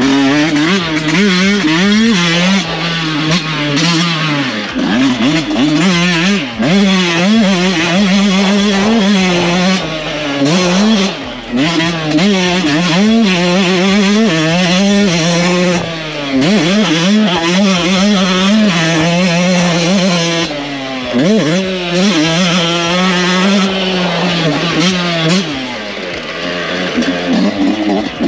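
Yamaha YZ125 125cc two-stroke engine revving hard under a rider, heard from onboard. Its pitch climbs through the gears and drops each time the throttle is shut, several times over.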